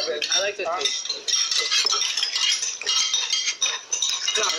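Spoons and forks clinking and scraping against plates as several people eat at a table, many light clicks in quick, irregular succession.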